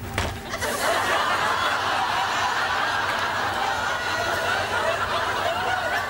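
Studio audience laughing, breaking out about half a second in and running on as a sustained wave of mixed laughter.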